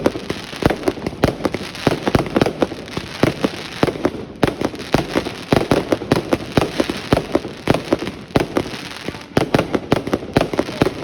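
Fireworks display: a dense, irregular barrage of sharp bangs and crackles from bursting shells, with a brief lull about four seconds in.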